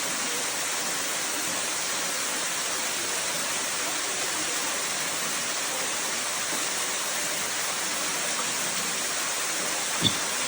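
Steady rushing hiss of a waterfall pouring into a pool, with one short knock near the end.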